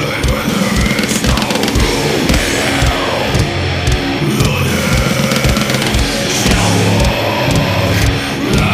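Background heavy metal music with distorted guitar and drums.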